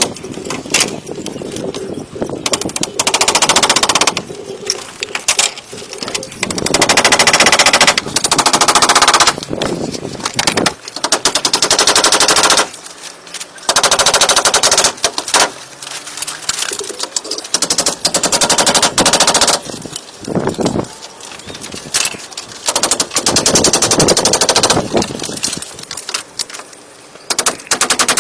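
Woodworking power tool running in repeated bursts of one to two seconds, each a loud, fast rattle, with short pauses between bursts.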